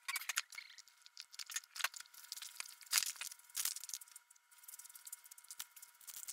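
Clear plastic LEGO parts bags crinkling and rustling as they are handled, with irregular small clicks and rattles of loose plastic bricks, loudest about three seconds in. A faint steady hum runs underneath.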